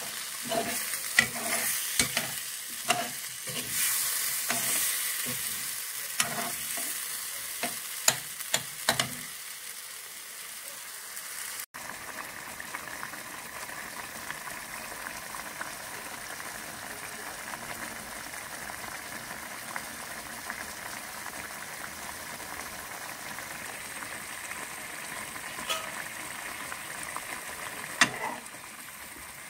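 A metal spoon stirs a pan of chicken and potato curry, knocking and scraping against the nonstick pan many times during the first nine seconds over the sizzle of the cooking sauce. After that comes a steady sizzle and bubbling of the simmering curry, with a couple of light knocks near the end.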